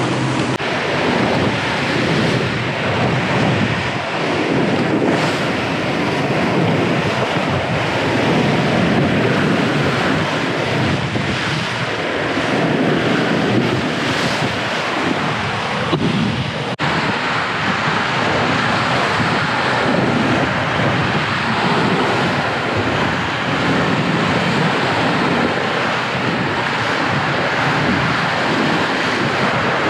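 Loud rushing and churning of white water streaming past a Leopard 45 sailing catamaran's hull and stern as it sails fast through rough seas, with strong wind buffeting the microphone. The sound breaks off briefly and changes character a little over halfway through.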